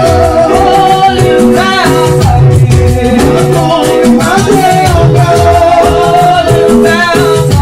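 Loud church praise music: voices singing over sustained chords and a steady, busy percussive beat.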